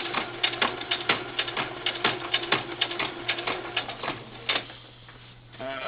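Singer Futura sewing machine running a straight stitch: a steady motor hum under rapid, even needle clicks, several a second. The stitching stops about four and a half seconds in.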